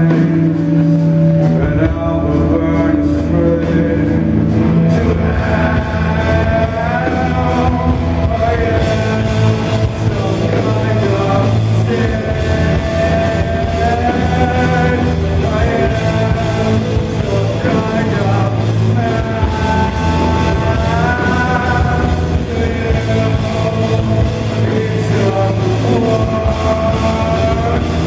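Heavy rock band playing live through the venue's PA: electric guitars, bass guitar and drums, with long held melody notes that slide up and down in pitch over a steady, dense low end.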